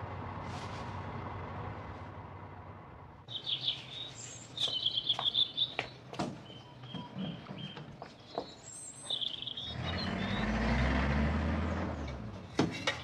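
Birds chirping in short runs, with a few sharp clicks, over a steady background hum; a low rumble swells and fades about ten seconds in.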